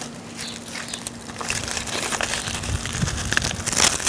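Husks of in-husk roasted corn rustling and crackling as they are pulled back from the ears by hand, a dense run of small crackles with a louder burst near the end.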